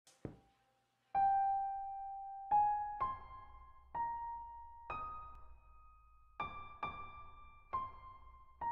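Music: a slow keyboard melody played one note at a time, each note struck and left to ring and fade, about one a second.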